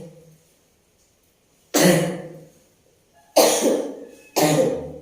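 A woman coughing: three separate coughs, the last two close together. It is a persistent cough that has not healed.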